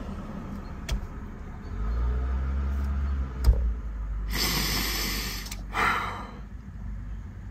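A man breathing out heavily twice, a long breathy sigh about halfway through and a shorter one a second later, after a low rumble in the first half.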